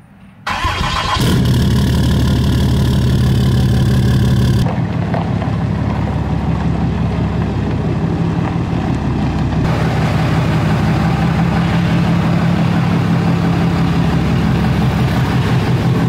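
Diesel truck engine cranking and catching about a second in, then running steadily with a low, even drone. The higher part of the sound changes abruptly twice, about five and ten seconds in.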